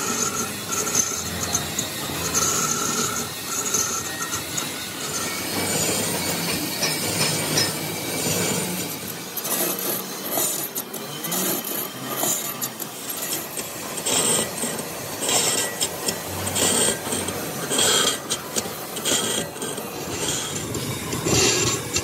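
Manual lathe turning a large cast spoked gear blank, the cutting tool scraping and rasping unevenly against the rim. A steady whine runs under it for the first few seconds, and the grating grows rougher and denser later on.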